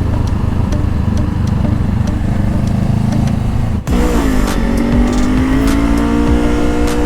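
Honda CBR500R's parallel-twin engine running under way, mixed with wind noise. About four seconds in there is a sharp brief break, after which the engine note drops in pitch and then holds steady.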